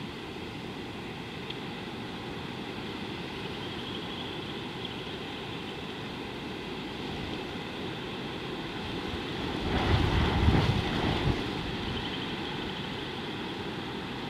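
Steady outdoor background hiss of open bush, with a short gust of wind buffeting the microphone about ten seconds in, lasting around two seconds.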